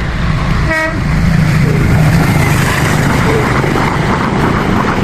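A vehicle horn gives one short toot about a second in, over the steady low rumble of passing road traffic.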